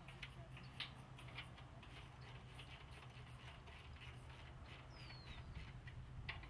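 Faint outdoor ambience: scattered light clicks and ticks over a low steady hum, with a bird's short descending whistle about five seconds in.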